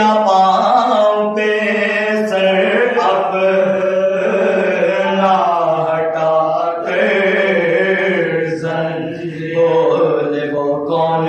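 Men's voices chanting a Muharram mourning recitation (soz and salam) in long, drawn-out melodic lines.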